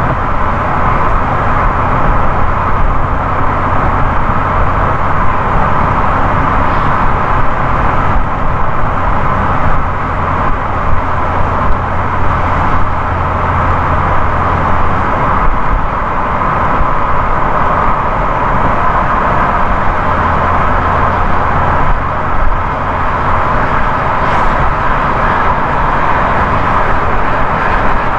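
Steady road noise of a car driving at highway speed: a continuous rush of tyre and wind noise with a low rumble underneath.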